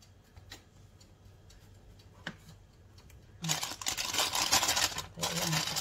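Thin plastic bag crinkling and rustling as hands pick it up and gather it around its soft filling, starting about three and a half seconds in after a couple of faint clicks.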